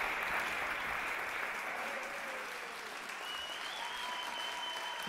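Audience applause, slowly fading, with faint steady high tones coming in about three seconds in.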